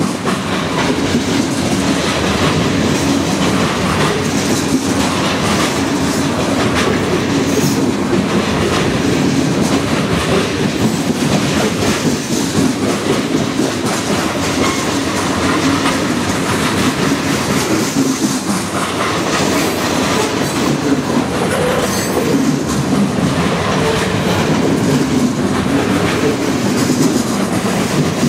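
Freight cars rolling past at track speed: the steady rumble and clatter of steel wheels on rail, loud and unbroken throughout.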